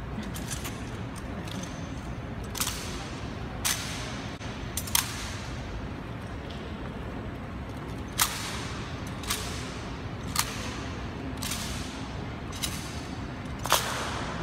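Honour guard's rifle drill and marching on a marble floor: a series of sharp clacks of hands slapping rifles and boot heels striking stone, about a dozen in all, spaced roughly a second apart in the second half, each echoing briefly in the hall.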